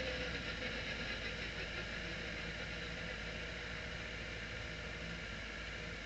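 Radical SR3-RSX race car's engine idling steadily in first gear as the car rolls to a stop, a low hum under a steady hiss.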